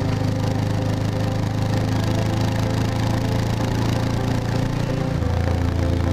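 Motorcycle engine running at steady revs under wind and road noise, its note dropping to a lower pitch about five seconds in.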